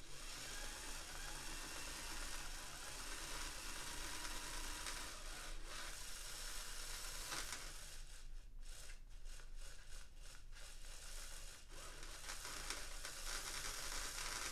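Small electric motor and gears of a Lima model tank locomotive running slowly on the track: a faint whir with rattling that stutters and cuts in and out several times around the middle. The mechanism is not yet run in and is still sluggish.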